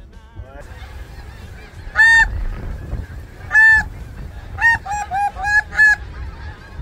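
Canada goose honks, loud and close: two long honks, then a quick run of five shorter ones.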